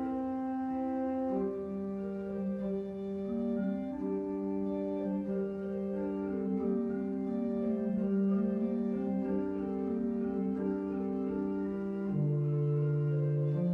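Church pipe organ playing a slow prelude of sustained chords. The notes change in steps, and a lower, louder bass note comes in near the end.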